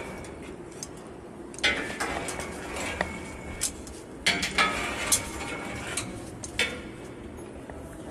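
Irregular metallic clinks and clanks from a person moving along a metal mesh catwalk in a safety harness, footfalls and harness gear knocking on the steelwork, over a steady background hum.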